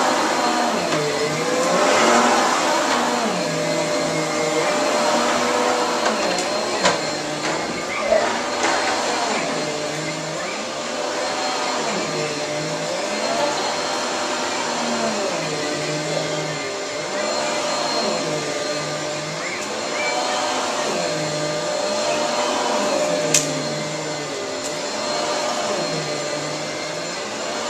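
Vacuum cleaners running on carpet, a steady motor whine with a lower pitch that rises and falls every couple of seconds.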